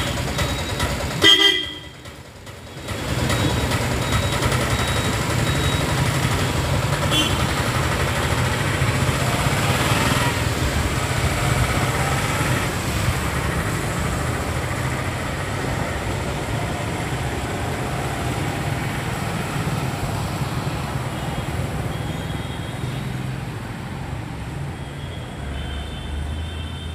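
Road traffic: motor vehicles running past on the road, with vehicle horns tooting, the loudest a short toot about a second in, and shorter toots later on.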